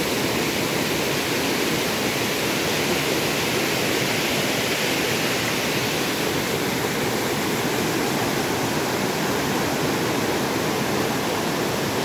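Steady rushing of a river tumbling over rocky rapids and small waterfalls.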